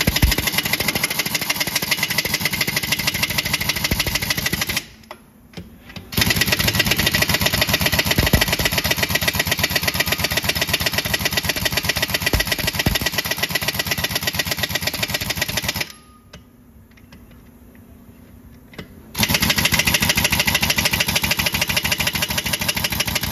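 Large Chicago Pneumatic air impact wrench hammering on truck wheel lug nuts: three long runs of rapid hammering, broken by short pauses about five seconds in and about sixteen seconds in.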